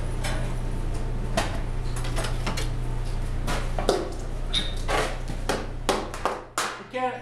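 Hammer blows dishing a sheet-copper mask over a ball stake. A few scattered knocks and clatters come first; about six seconds in, a quick, even run of strikes begins, roughly three a second. A steady low hum underneath stops just before the run of strikes.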